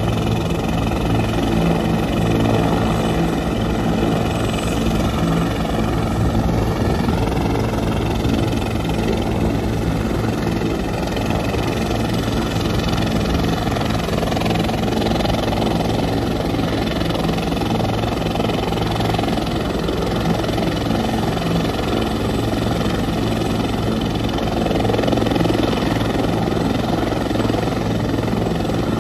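Medevac helicopter running on the ground before takeoff: a steady turbine whine of several high tones over a low engine and rotor drone.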